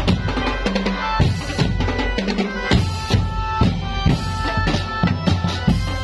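Drum band playing: marching bass drums and snare drums beat a fast, steady rhythm under a held melody line.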